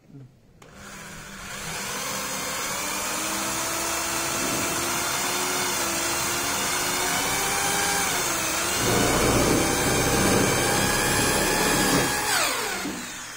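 Corded electric drill driving a self-drilling screw into steel roofing sheet. The motor whine starts under a second in and holds steady. About eight seconds in, its pitch dips under load and a rough grinding joins as the screw cuts into the metal. Near twelve seconds the trigger is released and the whine falls in pitch as the motor winds down.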